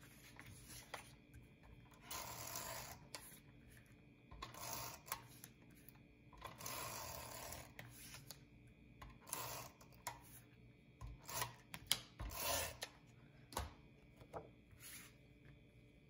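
Paper and cardstock being handled, slid and rubbed against a cutting mat: a series of short rubbing and sliding strokes, with a sharp tap about twelve seconds in.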